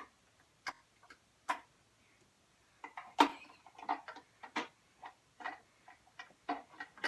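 Irregular sharp clicks and taps of a nearly empty plastic dish soap bottle being handled, opened and worked to get the last soap out.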